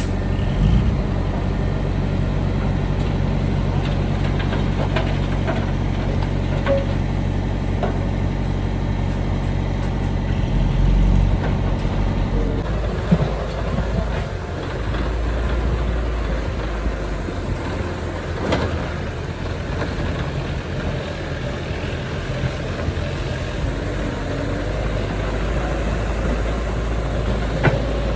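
Heavy diesel engine of earthmoving machinery running steadily. Its note changes about halfway through.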